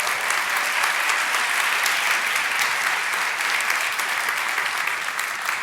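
Congregation applauding: steady clapping from many hands, fading near the end.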